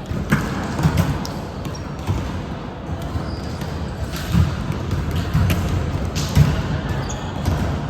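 Indoor volleyball match sounds in a gymnasium: repeated thuds of balls striking hands and the floor, sharp slaps, and brief high shoe squeaks over the hall's steady background noise.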